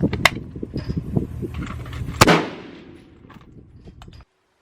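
Gunfire: a rapid string of cracks and pops over a low rumble, then one loud shot about two seconds in that rings out and fades, before the sound cuts off abruptly near the end.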